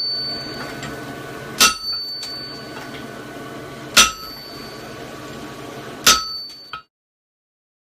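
Three hammer blows on steel at an anvil, about two seconds apart, each leaving a clear metallic ring, over a steady hum; the sound cuts out near the end.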